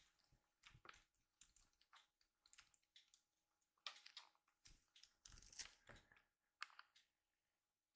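Near silence with scattered faint ticks, taps and soft rustles: a kitten's paws stepping on a cushioned floor mat as it noses a plush toy mouse.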